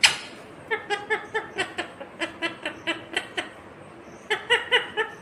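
Ringneck parrot chattering: a sharp call at the start, then a quick run of short, evenly repeated pitched notes, about three to four a second, and a shorter run near the end.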